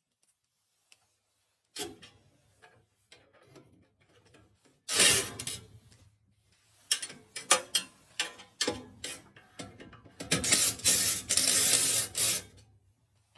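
Clicking, scraping and rattling of hand tools and furnace parts being handled during repair work, with a loud rasping burst about five seconds in and a longer one near the end.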